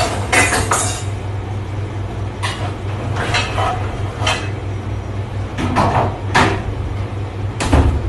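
Stainless steel pans and dish racks clattering and knocking as they are handled at a commercial hood-type dishwasher, in irregular bursts over a steady low hum. Near the end comes a heavier clunk as the machine's hood is worked.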